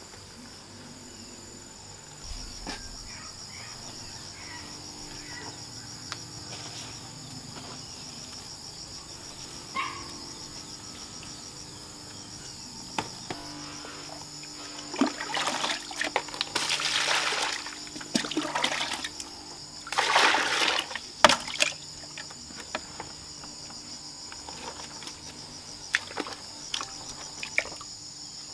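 Steady high chirring of insects, with water splashing and sloshing as it is poured from a plastic bucket into a plastic basin in two bursts about halfway through. A few light knocks come near the end.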